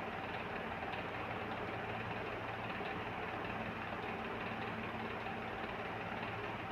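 A steady mechanical hum, even and unchanging, like a small motor running.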